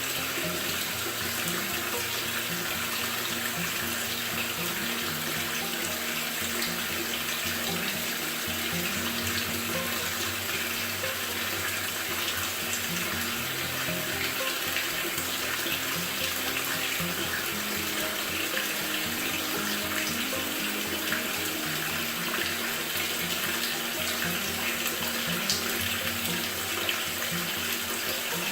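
Maytag top-load washer filling, with a steady rush of water running into the tub.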